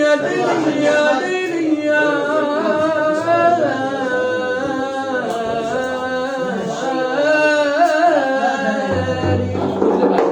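A man singing a long, wavering melismatic line with no clear words, the voice gliding up and down in pitch.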